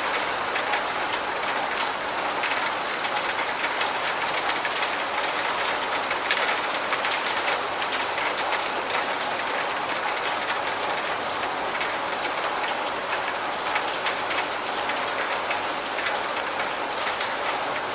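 Steady rain, an even hiss with many close drops striking sharply throughout.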